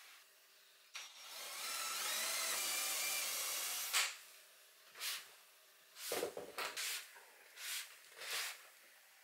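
Cordless drill-driver running for about three seconds with a whine that rises a little in pitch, stopping with a sharp click; then a few short knocks and rustles of handling.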